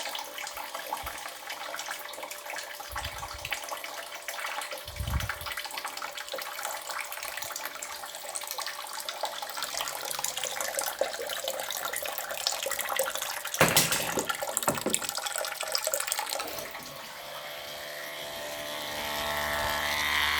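Household electric water pump running without drawing water: it has lost its suction and pushes nothing out. A rushing, water-like noise with small clicks, a sharp knock about two-thirds through, then a steady motor hum near the end.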